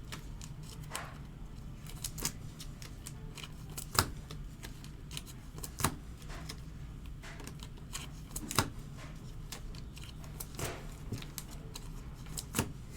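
Trading cards and their packaging being handled: scattered light clicks and taps, a few sharper ones, over a steady low hum.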